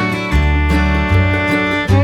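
Background music: upbeat bluegrass-style instrumental with fiddle and acoustic guitar over a plucked bass line.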